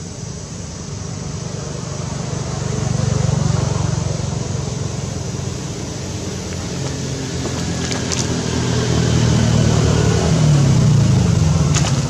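Engine of a road vehicle going by, a low hum that swells twice and bends in pitch near the end. Two short high clicks come in the second half.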